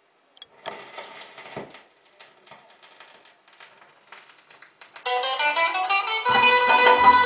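Stylus set down on a spinning 45 rpm vinyl single: a click, then crackle and pops from the lead-in groove. About five seconds in the record's music starts with a plucked-string intro, and a bass line joins a second later.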